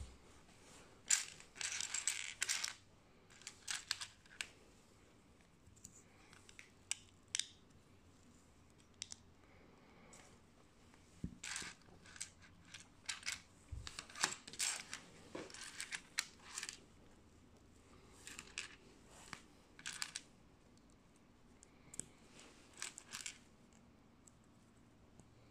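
Small Lego-compatible plastic building bricks clicking and clattering as they are handled and pressed together, in irregular clusters with short pauses.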